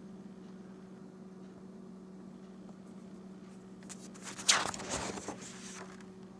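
A page of a spiral-bound paper booklet is turned: a short rustle and flap of paper about four seconds in, lasting under two seconds. Under it runs a steady low hum.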